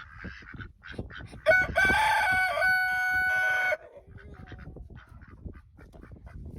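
A rooster crows once, one long pitched call of about two seconds that starts about a second and a half in and cuts off sharply. Faint short scuffing sounds come and go around it.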